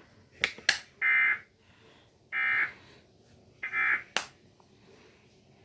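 Emergency Alert System end-of-message data bursts: three short, buzzy digital tones about a second apart, marking the end of the alert. Two sharp clicks come just before them and another right after the last one.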